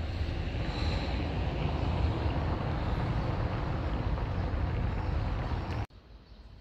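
Steady outdoor rushing noise with a heavy low rumble, cutting off abruptly about six seconds in and giving way to quieter street ambience.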